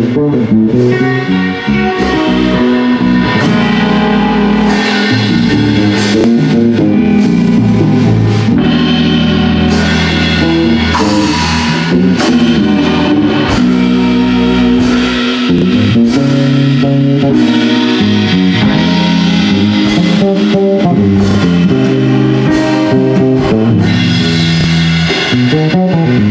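Jazz band playing live: guitar over a walking bass line and drum kit, with steady drum strokes throughout.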